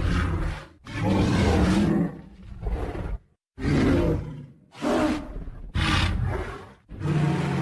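Monster roar sound effects for an animated Godzilla: a run of growling roars, each about a second long, broken by short gaps.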